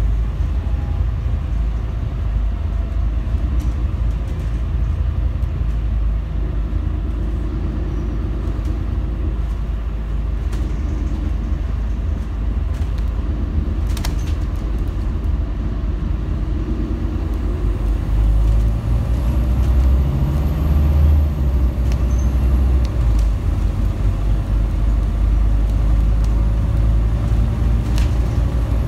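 Scania N250UD double-decker bus on the move, heard from the top deck: steady low rumble of its five-cylinder diesel engine and tyres on the road, with a sharp click about halfway through. The rumble grows louder and deeper about two-thirds of the way in.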